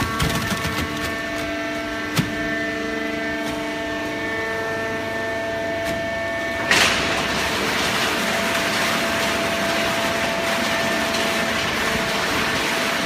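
Hydraulic horizontal baling press running, a steady hum made of several held tones. A single sharp knock comes about two seconds in. Near seven seconds a sudden loud burst sounds, and a louder, hissing rush then takes over.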